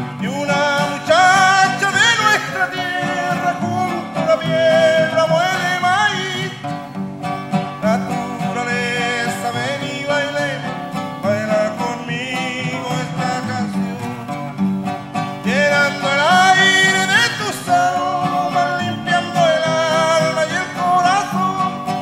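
Two acoustic guitars strummed together in a folk song, with a man's voice singing over them.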